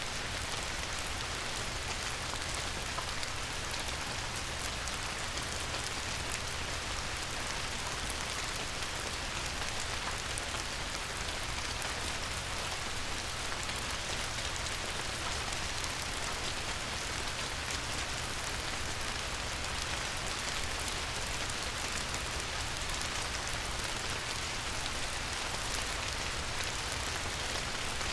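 Light rain falling steadily on a river: a dense, even patter of drops over a constant hiss, with a low steady rumble underneath.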